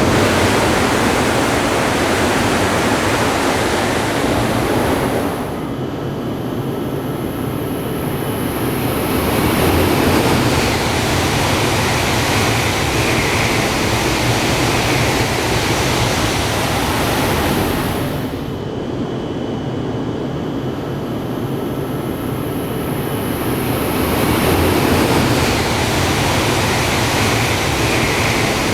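Steady loud rushing of a Shinkansen train running, the noise easing slightly twice before building again.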